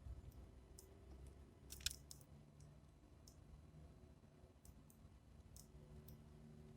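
Faint, scattered clicks of sparrows pecking at seed in a feeder, with one louder click a little before two seconds in; otherwise near silence.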